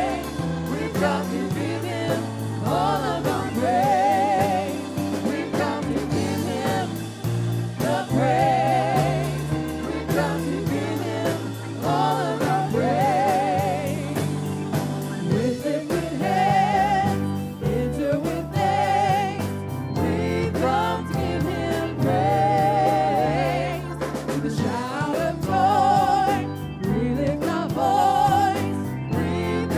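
Gospel worship song: voices singing with vibrato over a band with sustained bass notes and a light steady beat.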